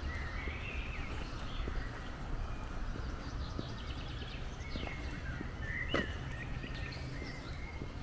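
Footsteps on a gravel woodland path, a regular series of short crunches, with songbirds singing warbling phrases throughout, loudest about six seconds in. A steady low rumble runs underneath.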